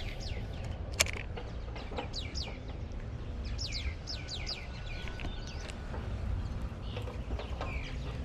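Small birds chirping repeatedly, each call a quick downward-sweeping note, over a steady low rumble. A single sharp click about a second in.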